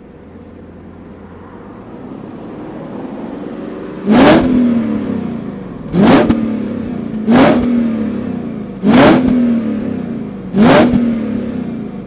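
BMW M62B44TU 4.4-litre V8 heard at the stock exhaust tip, idling and then revved in five quick blips, each rising sharply and falling back to idle.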